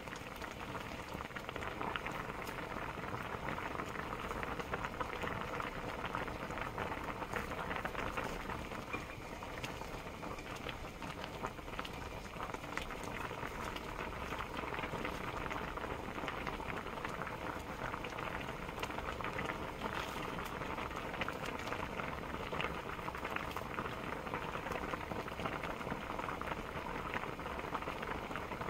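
Pot of clam knife-cut noodle soup (kalguksu) boiling hard: a steady, dense bubbling and popping of the broth.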